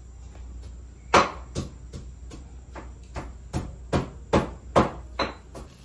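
A run of about a dozen sharp knocks, irregularly spaced at two or three a second, starting about a second in, like hard chopping or pounding. A low steady hum runs underneath.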